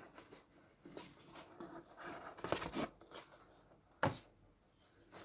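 Soft, intermittent rustling and scraping of cardboard and paper as a wig box is opened and its contents handled, with one sharp knock about four seconds in.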